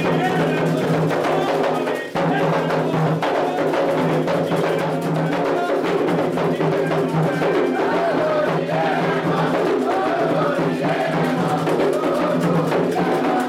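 Candomblé ritual music: atabaque hand drums played in a fast, steady rhythm under group singing, with a brief dip in the sound about two seconds in.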